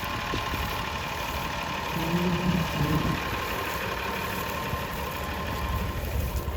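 Tractor engine running steadily, with a constant drone. A faint distant voice comes in briefly midway.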